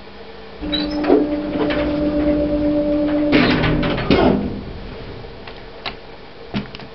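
1990s Stannah passenger lift's doors closing: a steady motor hum for about three seconds that ends in a clatter as the doors shut, then a few sharp clicks before the car moves off.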